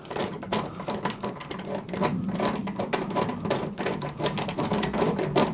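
Rapid, irregular metallic clicking and rattling as the steering-head bearing nut of a scooter's front fork is unscrewed.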